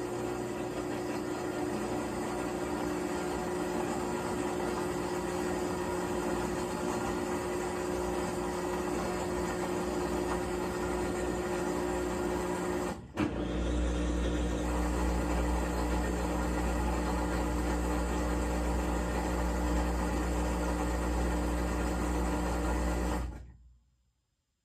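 Maytag MVWC565FW2 top-load washer in its spin cycle, running with a steady grinding hum: the drum is not getting up to full spin speed. About halfway through the sound breaks off for a moment and returns with a deeper rumble, then cuts off suddenly near the end.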